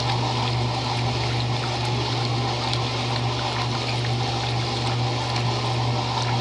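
Electrolux LE08 washing machine running, water rushing and splashing inside it over a steady low hum.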